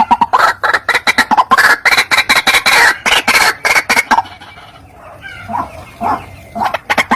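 White-breasted waterhen calling: a fast run of short repeated notes, about five a second. About four seconds in it drops to a few quieter notes, then starts up again near the end.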